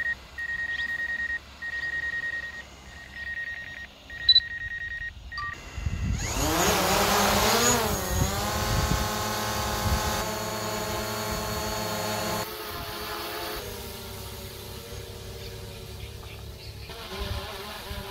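DJI Mavic Pro quadcopter's motors whine steadily at idle on the ground. About six seconds in they spool up for take-off, with a rush of propeller downwash and a rising pitch. The pitch then settles into a steady multi-tone whine that fades as the drone climbs away.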